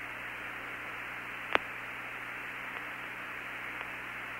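Steady hiss of the Apollo 17 air-to-ground radio channel between transmissions, with one sharp click about a second and a half in.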